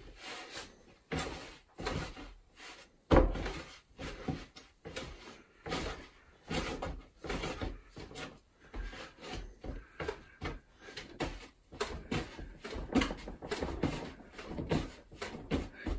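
Bread dough being kneaded by hand on a floured wooden table: irregular soft thumps and pats as the dough is pushed and folded, with one louder thump about three seconds in. The dough is being kneaded at length to strengthen its gluten.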